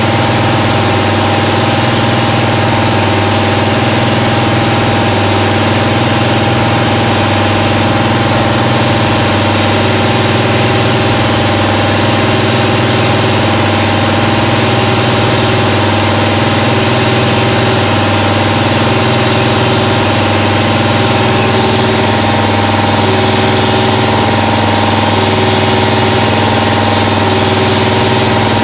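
Haas VF-3 CNC vertical mill cutting a pocket in an aluminium block with an end mill: a loud, steady machining drone of spindle and cut, with a hiss of chips over it. From about ten seconds in a faint tone comes and goes about once a second.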